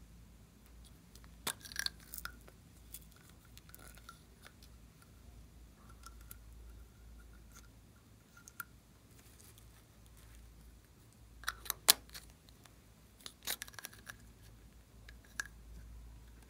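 Quiet clicks and scrapes of hard plastic: ice-cream-cone-shaped makeup containers being handled and opened, and a small plastic spatula scraping product out of them. The clicks come in clusters, about two seconds in and again near the end.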